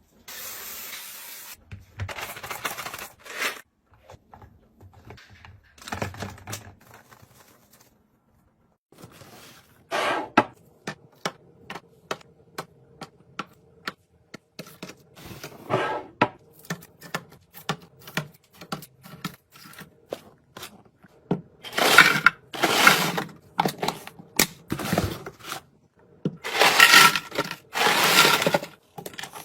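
Packaged groceries being handled and put away: a run of small clicks, knocks and scrapes, with louder crinkling of packaging about two-thirds of the way through and again near the end.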